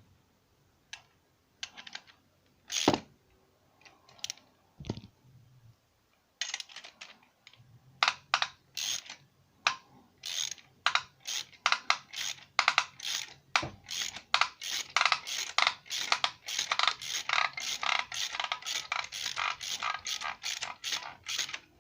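Hammer striking metal parts of a Puch E50 moped engine, knocking at a stuck part to drive it off. A few scattered knocks come first, then from about six seconds in a fast, steady run of blows at about three a second.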